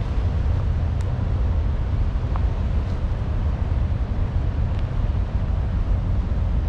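Outdoor ambience made up of a steady low rumble, with a few faint, brief sounds scattered through it.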